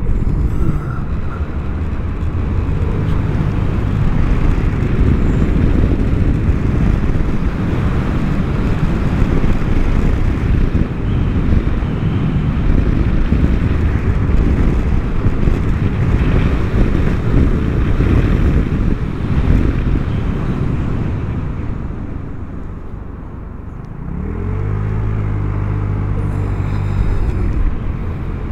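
Wind rushing over a helmet-mounted microphone, with the Vespa GTS300 HPE scooter's single-cylinder engine running underneath. The rush eases off about three-quarters of the way through. Then the engine comes through clearly, its note climbing and then holding steady.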